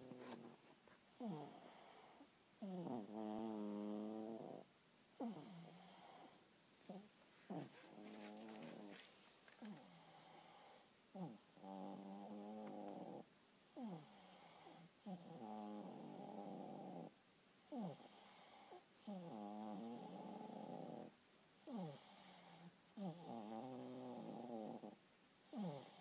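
Small dog snoring in deep sleep: a wavering snore on each breath, about one every two seconds.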